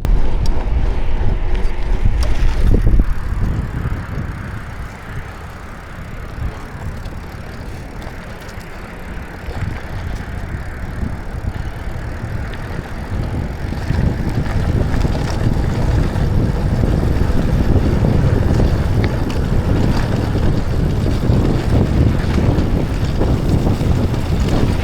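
Mountain bike being ridden on a dirt trail: tyre noise and rattle mixed with wind rushing over the camera microphone, easing off after the first few seconds and growing louder again from about halfway through.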